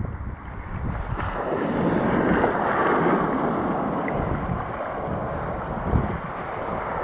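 Wind buffeting the microphone over the wash of ocean surf, with a wave rushing in that is loudest around two to three seconds in.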